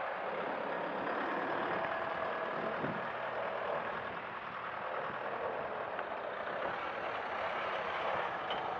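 Steady, even rush of motor traffic out of sight, a constant street ambience with no distinct events.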